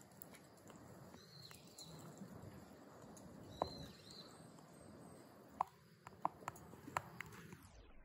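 Faint outdoor background hiss with two short, high chirps in the first half and a handful of sharp clicks in the second half.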